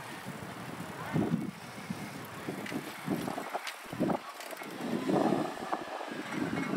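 Wind buffeting the microphone of a camera on a moving bicycle, in uneven low rumbling gusts over faint street noise.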